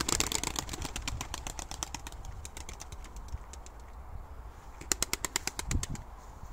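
A small flock of pigeons taking off, their wings clattering in a rapid run of claps that thins out over about two seconds. Another short run of the same clatter comes about five seconds in.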